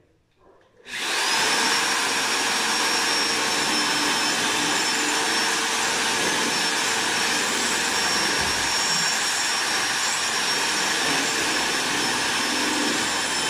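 Corded electric drill starting up about a second in and then running steadily as it bores a hole in the wall for a curtain fitting.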